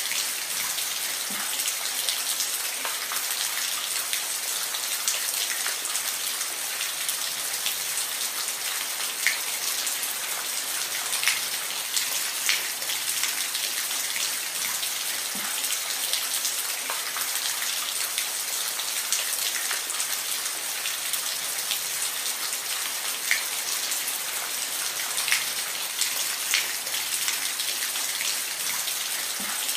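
Steady rain falling, an even hiss with scattered sharper drips striking a surface.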